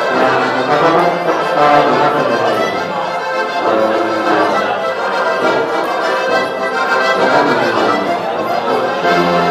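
Diatonic button accordion playing a lively alpine folk tune, with deep bass notes under the melody.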